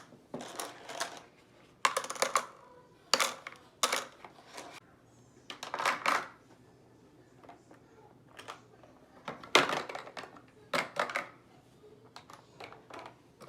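Plastic toy packaging and toy pieces being handled and opened: irregular clicks, rattles and rustles, about a dozen short bursts with pauses between, the loudest about nine and a half seconds in.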